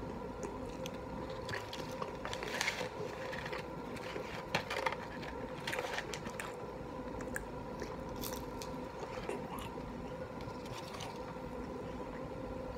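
Faint chewing and mouth sounds from eating chicken nuggets, with scattered soft clicks, smacks and rustles over a faint steady hum.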